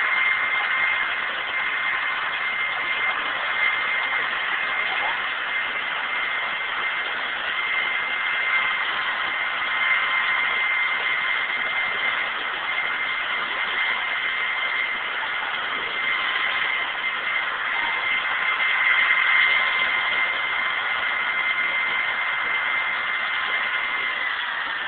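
UH-60 Black Hawk helicopter running on the ground with its rotor turning: a steady high turbine whine from its twin turboshaft engines over a constant rushing rotor noise.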